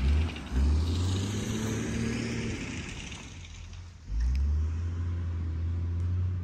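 An engine running with a low, steady hum. It is loud at first, fades away around the middle, and comes back up strongly about four seconds in.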